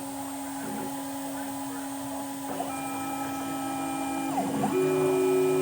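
CNC router running, with a steady motor whine. More tones join about halfway, then the pitch dips and glides briefly before settling on a new, higher steady tone, as the machine's motors change speed.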